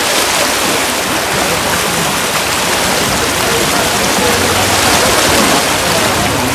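Water gushing through a steel canal sluice gate and churning white in the concrete channel below: a steady, loud rush.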